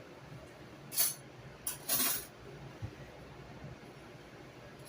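A few brief kitchen handling sounds, light clinks and scrapes of dishes or utensils, three of them close together in the first half.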